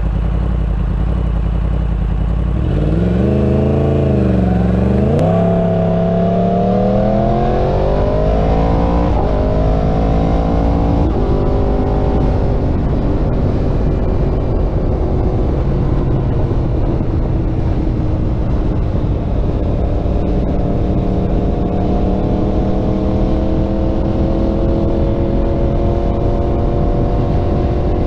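Yamaha R1 inline-four engine through a Graves aftermarket exhaust: it idles steadily, then about three seconds in revs up as the bike pulls away. It climbs through three quick upshifts and settles into a steady cruise, the pitch slowly rising, with a constant rush of wind and road noise underneath.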